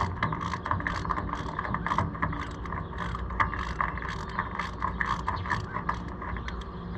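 Hand socket ratchet clicking steadily, about three to four clicks a second, as a wheel bolt is run in on a tractor wheel hub. A faint steady hum sits underneath.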